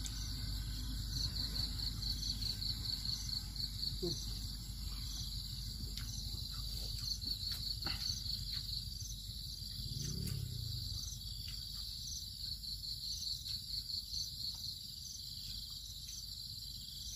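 Insects chirping in a steady, rapidly pulsing high-pitched chorus, with a low rumble underneath and a few faint clicks.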